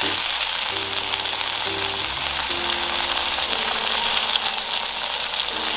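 Chopped tomatoes and onions sizzling in hot oil in a pan as they are sautéed and stirred, with a steady crackling hiss. Soft background music of held notes plays underneath.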